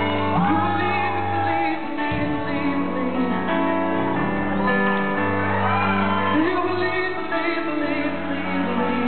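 Live band music with keyboards, and a singer singing the melody over held chords and bass.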